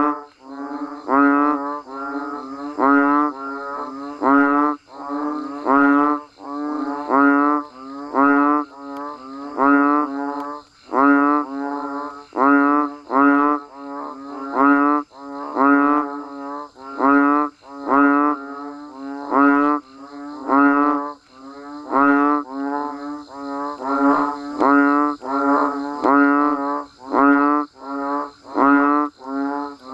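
A chorus of frogs and banded bullfrogs calling, the calls a deep bleat repeated about once a second over a steady low drone from the rest of the chorus.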